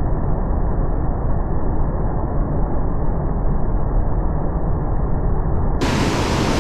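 Steady, loud rush of creek water falling over rocks, unbroken throughout; near the end it suddenly sounds brighter and fuller.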